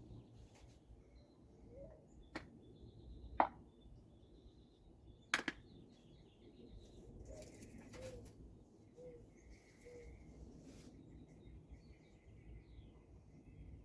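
Neck joints cracking during a massage: three sharp cracks about a second and two seconds apart, the last two loudest, the last one doubled. Faint birdsong chirps in the background.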